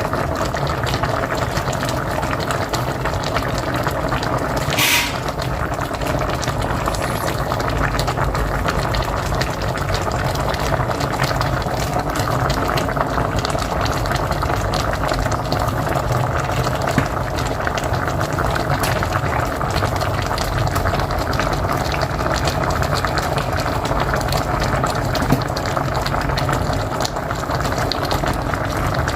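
Pot of mocotó (cow's feet) boiling on a wood-fired stove: a steady bubbling with a low rumble underneath, and one short sharp pop about five seconds in.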